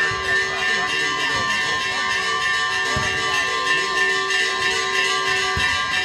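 Church bells ringing steadily, their ringing tones overlapping and sustained.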